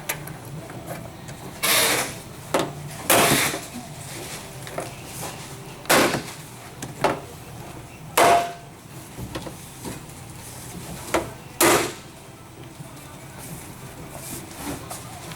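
Irregular knocks and clicks, about eight in all, as a rubber bumper pad's tabs are pressed and tapped into the rear bumper face bar of a Ford F-150.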